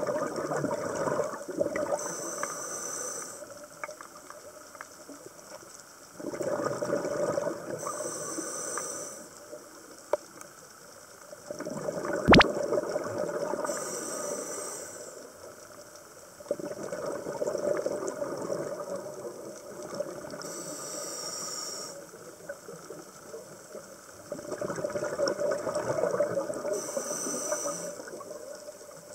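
Scuba diver breathing through a regulator underwater: a short hiss on each inhale, about every six seconds, with a longer bubbling gurgle on each exhale in between. A single sharp click about twelve seconds in.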